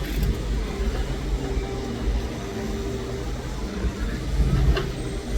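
Komatsu PC200 hydraulic excavator's diesel engine running steadily while the machine works, with a sharp knock near the end.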